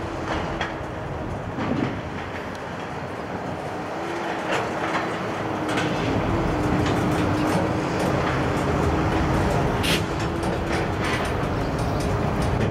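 Freight train of steel gondola cars rolling slowly past, with wheels clicking and knocking over the rail and a steady rumble. One sharp metallic clank about ten seconds in.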